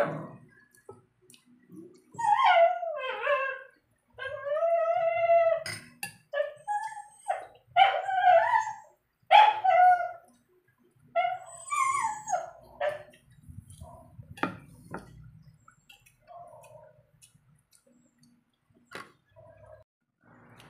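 A dog whining and yipping: a run of high, wavering whines for about ten seconds, then a few fainter short ones.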